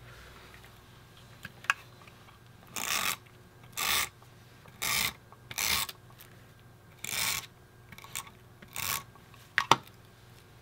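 Tape runner laying repositionable adhesive along punched cardstock border strips: about six short strokes, each under half a second, with a sharp click near the end.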